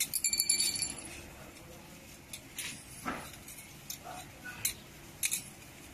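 Small metal parts of a sheet-metal airplane wind spinner clinking as they are handled: a short ringing metal clatter in the first second, then a few scattered light clicks and taps.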